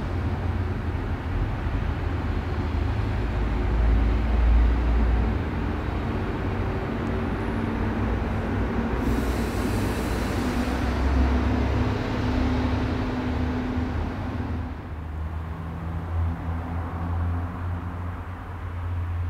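Steady low rumbling noise with a hiss over it and a few low steady hums, of the kind that passing traffic or a train makes. A brief brighter hiss comes in about nine seconds in, and the rumble thins out around fifteen seconds.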